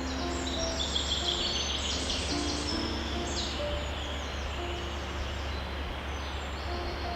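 Many songbirds chirping at once, a dense stream of quick high chirps over a steady hiss and low hum, with short soft low notes sounding underneath now and then.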